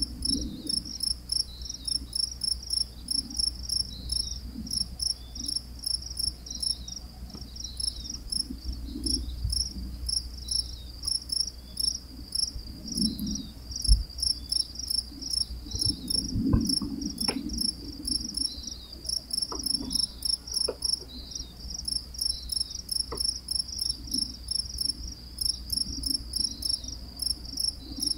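Crickets chirping in a steady, even rhythm, a few high chirps a second, over a faint low rumble. A single low thump about halfway through.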